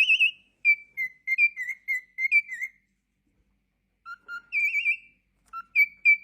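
Parrot whistling: a run of short, clear whistled notes, several with a quick warbling trill, a pause of about a second partway through, then more whistles including a few lower notes.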